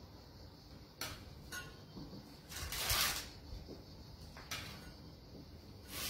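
Soft scrapes and light knocks of a metal cake server on a ceramic plate as a pastry is slid back onto it, the longest and loudest scrape about three seconds in.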